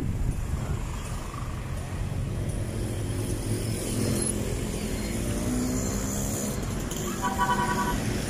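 Road traffic: the engines of passing vans, jeepneys and motorcycles running, their pitch rising and falling as they go by. A short steady tone sounds near the end.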